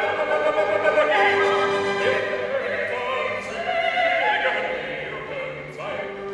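Classical music accompanying a ballet, with long held, wavering melodic notes.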